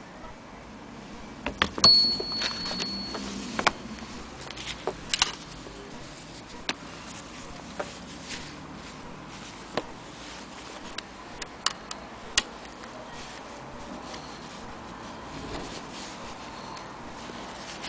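Scattered clicks and light knocks from handling an antique Willcox & Gibbs sewing machine and pieces of denim, with no machine running. The loudest knock, about two seconds in, is followed by a short high ringing tone.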